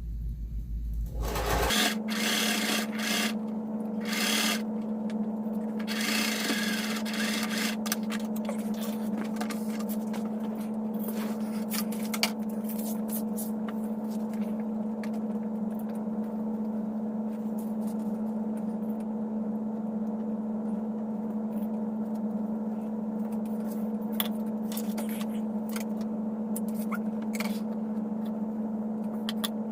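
Electric home sewing machine running at a steady speed while stitching a fabric hem, its motor giving an even hum, with light clicks and fabric rubbing under the needle.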